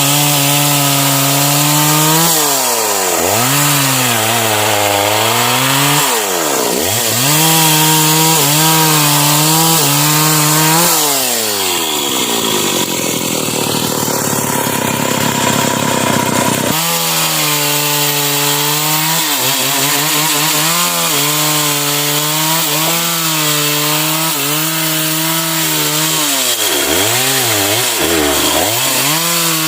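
Stihl MS 381 two-stroke chainsaw cutting sengon wood, its engine held high under load with the pitch sagging and recovering several times. About halfway through the revs fall away for several seconds, then jump straight back to full speed.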